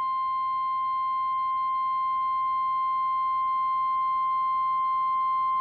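NOAA Weather Radio 1050 Hz warning alarm tone: a single steady, unbroken tone that signals an urgent warning broadcast is about to follow.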